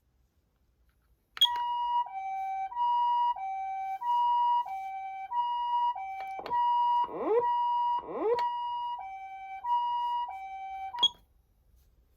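Electronic two-tone hi-lo ambulance siren from a Patlite siren amplifier, alternating between a higher and a lower pitch about every two-thirds of a second. It switches on and off with sharp clicks, and two quick falling sweeps cut across it partway through.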